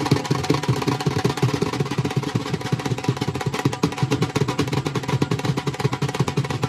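Dhol drums beaten in a fast, steady rhythm of rapid, closely spaced strokes.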